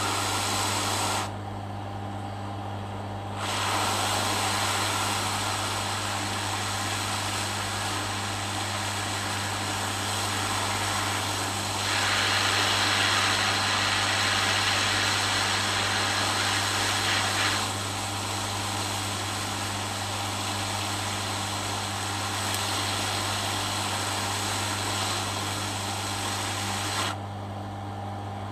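Hot air rework station blowing a steady hiss over a constant low hum while reflowing solder paste under replacement capacitors. The hiss drops for about two seconds a second in, is loudest in the middle, and drops again near the end.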